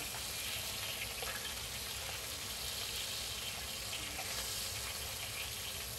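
A whole crucian carp and slices of ginger frying in oil in a wok, giving a steady sizzle.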